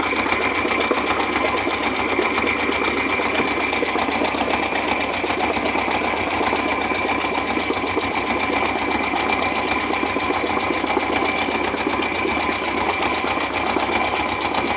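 Boat's outboard motor idling steadily, with a steady high whine over it.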